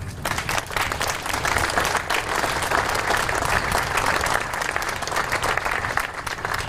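Audience applauding, with many hands clapping; it starts abruptly and eases slightly near the end.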